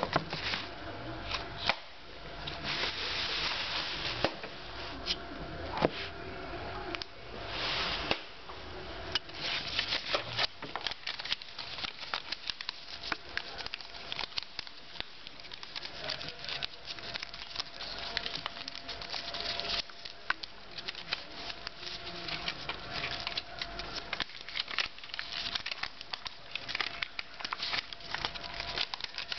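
Post-it note paper being folded and creased by hand against a tabletop: a continuous run of crinkling, rustling and small sharp creasing clicks, with a faint steady hum underneath.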